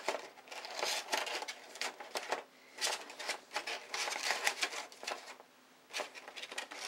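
Stiff drafting vellum sheets rustling and crackling in irregular bursts as they are handled and slotted together, with a brief lull about three quarters of the way through.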